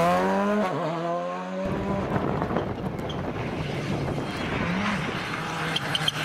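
Rally car's turbocharged engine revving hard as it passes, its pitch dipping at a quick gear change and climbing again. About a second and a half in, the sound cuts to a second rally car coming on at speed, heard as a rumbling, wind-blown noise with a faint engine note, and a few sharp clicks near the end.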